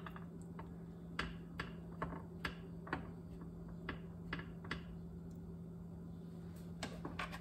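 Metal spoon clicking and tapping against a metal muffin tin and its liners while cupcake batter is spooned in: about a dozen short, irregular clicks over a steady low hum.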